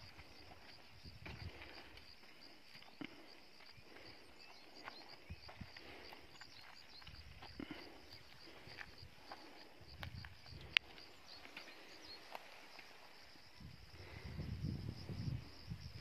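Faint footsteps on dry earth with light clicks and rattles from a bicycle being carried and pushed, over a steady high insect chirring. A sharp click about eleven seconds in, and a low rumble rising near the end.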